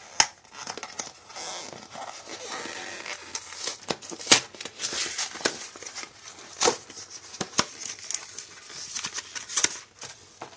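Cardboard retail box being torn open by hand: rustling and tearing of the card, with several sharp snaps as the flaps and tabs give way.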